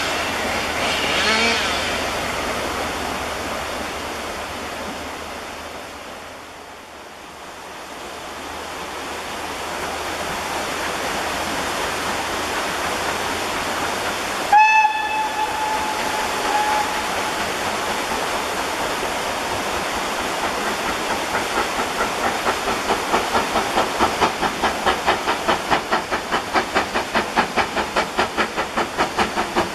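Steam locomotive working a train: its noise fades away in the first few seconds, then, after a break, a steam whistle sounds once for a couple of seconds. An approaching steam locomotive's exhaust beats then grow steadily louder, about two chuffs a second.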